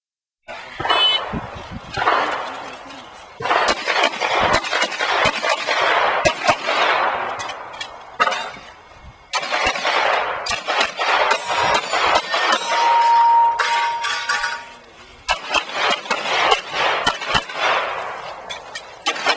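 Glock pistol fired rapidly in quick strings of shots with short pauses between, each shot echoing.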